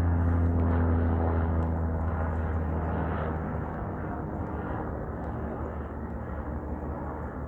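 A low, steady engine-like drone that fades away, its deepest hum dropping out about halfway through and leaving a rough rumble.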